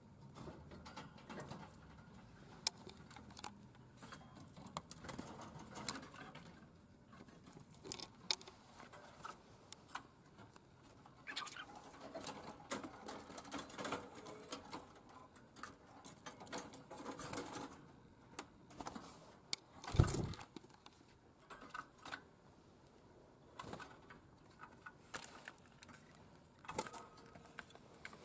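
Budgerigar chattering softly, with frequent small clicks and rustles from the bird and from handling the cage, feeder and scale. A single dull thump about twenty seconds in.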